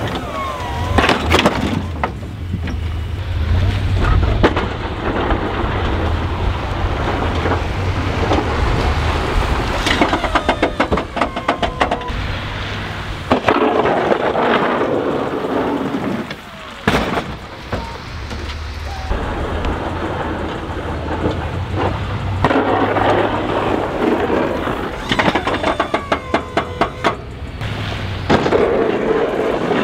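Snow plow trucks running with a steady engine drone while their front blades push and scrape heavy wet slush, a dense rushing, crunching noise. Twice a rapid clicking rattle comes through.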